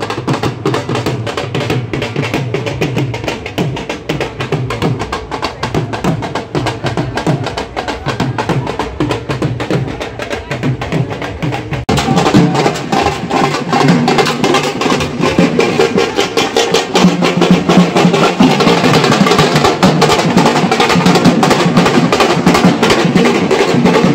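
Dhol drums played live for bhangra dancing, a fast driving beat. About halfway through it cuts abruptly to louder, fuller music.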